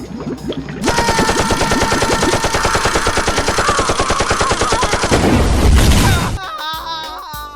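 A rapid rattle like machine-gun fire, about a dozen shots a second for roughly four seconds, that gives way to a low rumble; music comes in near the end.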